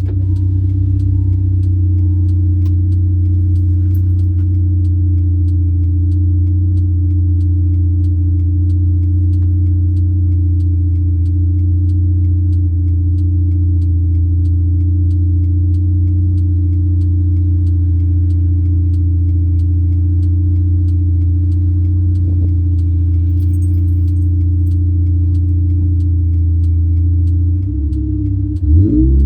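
Supercharged 1.6-litre four-cylinder engine of a modified 2004 Mini Cooper S, with road noise, holding a steady drone while cruising at constant speed. A faint regular ticking runs underneath. Near the end the pitch dips and climbs again, as at a gear change.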